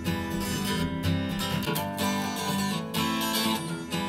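Instrumental intro of a pop song with strummed acoustic guitar and a steady beat, before the vocals come in.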